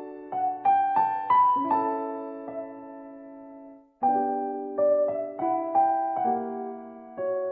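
Background music: a gentle piano melody of struck notes, each fading after it is played, in two short phrases that each settle on a held chord.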